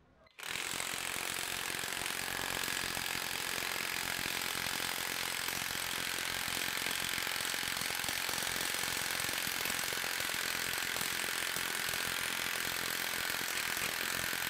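DeWalt high-torque cordless impact wrench hammering a bolt on a torque test rig at full trigger in reverse during a max-torque test. The rapid, even hammering starts abruptly about half a second in and holds steady.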